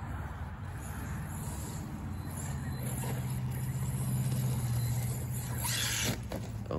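A steady low motor hum holding one pitch, growing louder over a few seconds, with a short rush of noise near the end.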